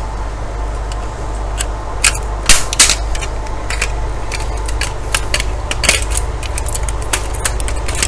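Irregular clicks and knocks of plastic and metal router parts being handled and pulled apart, with a cluster of sharper clacks about two to three seconds in. A steady low hum runs underneath.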